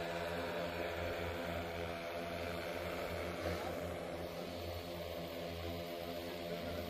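Agricultural spray drone's rotors giving a steady hum that holds the same pitch throughout.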